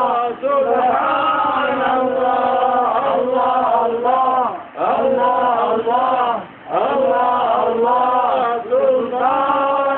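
A man's voice chanting Sufi dhikr in long melodic phrases of held notes, with short breaths between the phrases.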